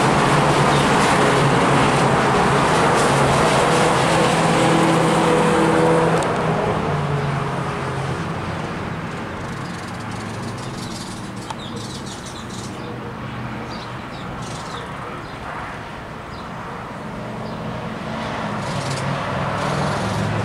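Cars lapping a road-racing circuit, their engines running loud as they pass. The sound fades away from about six seconds in, then builds again near the end as a yellow Ford Mustang convertible approaches.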